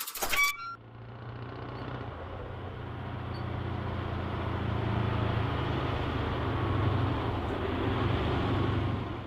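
Stock motor-vehicle sound effect: a steady low engine rumble that builds in loudness over several seconds and then holds.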